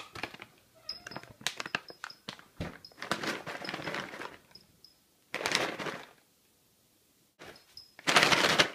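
A bag of crunchy cat treats shaken in several bouts, the kibble rattling inside, loudest in the last bout near the end. It is the shake used to call a cat for a treat.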